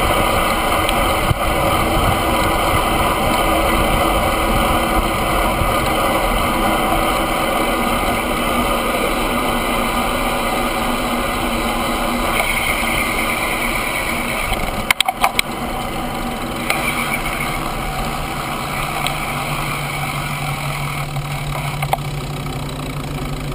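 Steady wind rush and tyre noise on a bike-mounted camera riding a road bicycle, easing slightly as the bike slows. A short rattle of knocks comes about two thirds of the way through.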